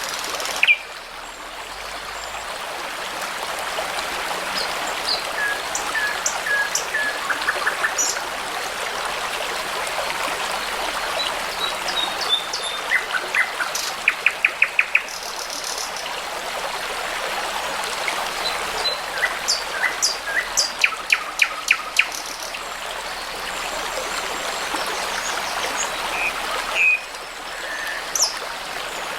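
A brook babbling steadily, with songbirds singing over it: short chirps and quick trills of rapid repeated notes, the loudest trills about halfway and again about two-thirds through.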